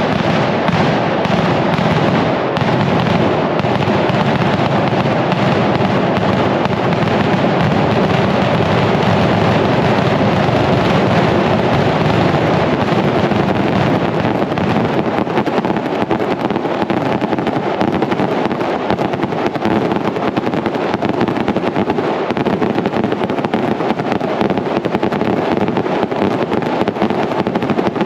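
Mascletà: a daytime barrage of Valencian firecrackers going off in rapid, unbroken succession, a dense steady crackle and banging with no gaps.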